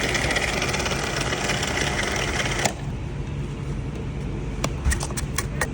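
Fountain drink dispenser running as it fills a cup, with a fast rattle, cutting off suddenly a little under three seconds in; a few light clicks follow near the end.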